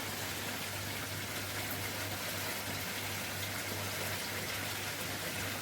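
Steady rush of water flowing in a koi pond's filter system, with a constant low hum underneath.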